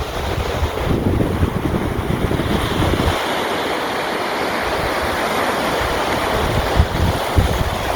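Sea waves washing on a shore, a steady hiss of surf with wind rumbling on the microphone. The low rumble falls away about three seconds in, leaving the hiss of the water, and comes back near the end.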